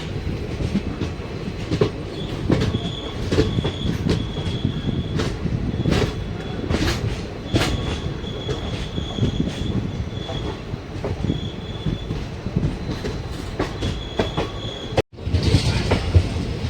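Passenger train running on track: steady rumble with repeated wheel clicks over rail joints, and a thin high wheel squeal that comes and goes.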